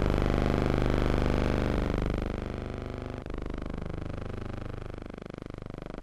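A steady engine drone with a low hum of many even tones. About three seconds in it drops somewhat in level, and its tone begins to sweep and waver.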